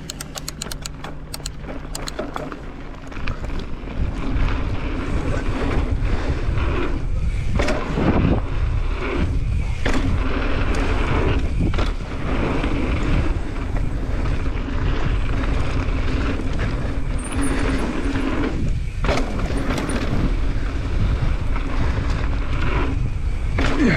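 Wind rushing over an action camera's microphone with the rumble of tyres on a dirt trail at riding speed, louder after about four seconds as the pace picks up; quick ticking in the first two seconds.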